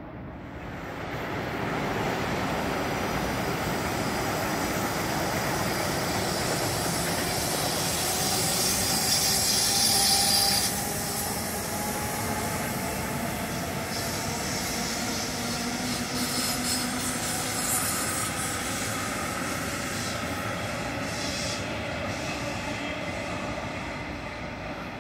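A metronom double-deck electric train runs past on a curved station track, a steady rolling rumble that builds up about a second in. High-pitched wheel squeal comes in, loudest around the middle, and fades as the train moves off.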